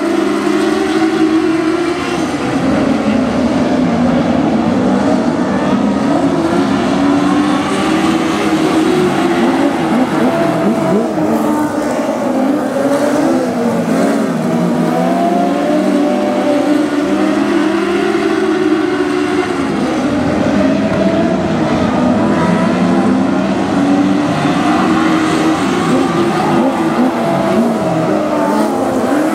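Compact speedcar engines racing as a pack on a dirt oval. Several engine notes overlap, each rising and falling as the cars accelerate down the straights and back off into the turns.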